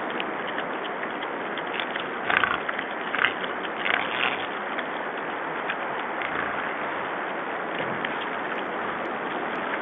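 Wild boars giving a few short squeals, about two and four seconds in, over a steady hiss.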